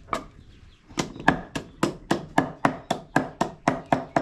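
Wooden pestle pounding in a large wooden mortar: one thud, a pause of about a second, then steady thuds about four a second.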